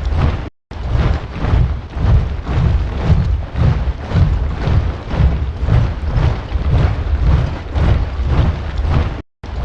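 A large body of troops marching, boots stamping together in a steady, heavy rhythmic tramp. The sound cuts out completely for a split second about half a second in and again near the end.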